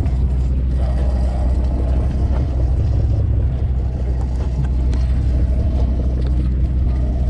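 Sportfishing boat's engine running with a steady low drone.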